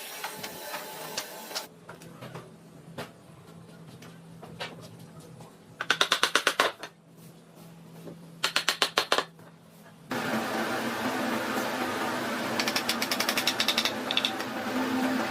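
Woodworking power tools: two short bursts of rapid clicking about two seconds apart over a low hum. Then, about ten seconds in, a motor-driven tool starts running steadily, with another patch of rapid clicking near the end.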